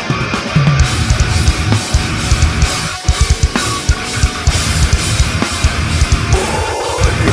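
Heavy metal band playing live: electric guitar and bass over a drum kit, with fast, dense bass-drum strokes and cymbals. The band stops for a moment about three seconds in, then comes straight back in.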